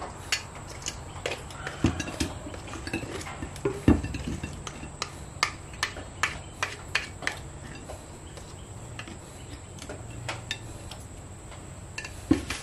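Stainless steel mixing bowl clinking and knocking against a plate as sauced chicken pieces are tipped and shaken out of it: a quick run of light taps with two heavier knocks in the first few seconds, quieter for a while, then one more knock near the end.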